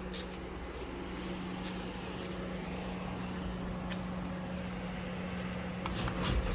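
LiftMaster Formula 1 3280 garage door opener running with a steady hum as it moves the door, then stopping with a couple of clicks near the end.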